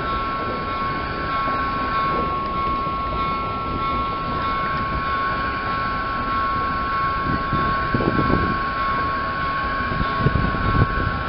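Passenger trains rumbling over a street level crossing, their wheels knocking over the rail joints, with the heaviest clacks about eight seconds in and again near the end. Through it the crossing's electronic warning bell sounds as a steady two-note tone.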